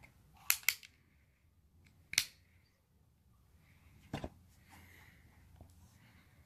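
Mendoza derringer .177 air pistol being worked by hand: a few sharp mechanical clicks. Two come close together about half a second in, the loudest about two seconds in, and another pair about four seconds in.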